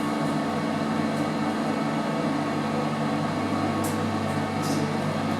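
Passenger lift car travelling between floors: a steady mechanical hum from the lift's drive, with a couple of faint brief hisses near the end.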